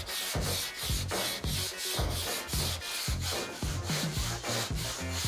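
Sandpaper on a long two-handled sanding board scraped back and forth over a marker-coated sheet-steel car hood, in quick even strokes, about three a second. This guide-coat sanding cuts through the marker on the high spots so that the highs and lows of the panel show.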